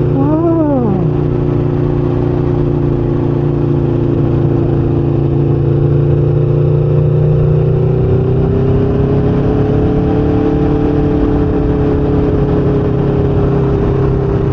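Motorcycle engine running at a steady cruising pace with wind rushing past, the engine note rising slightly about eight seconds in. A brief rising-and-falling tone sounds about half a second in.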